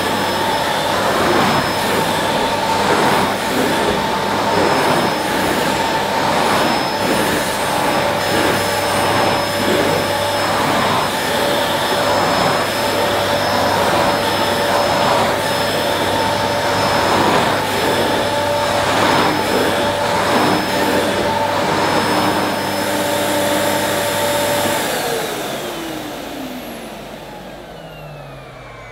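Hoover Discovery bagless cylinder vacuum cleaner running at full power while its floor nozzle is pushed back and forth over carpet, the suction noise swelling with each stroke. About 25 seconds in it is switched off and the motor winds down with a falling whine.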